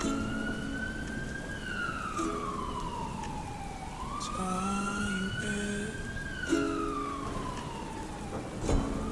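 Ambulance siren wailing, rising and falling slowly in two full sweeps, over a steady hiss of rain. Soft sustained chords of the slowed, reverberant song sit beneath it.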